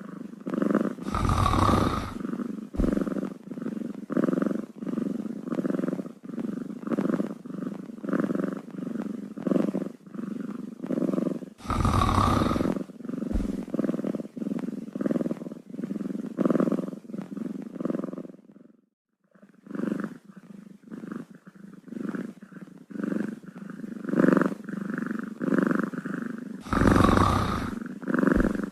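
Domestic cat purring steadily in a rhythmic pulse, with three louder sounds about a second long spread through it and a brief break about two-thirds of the way through.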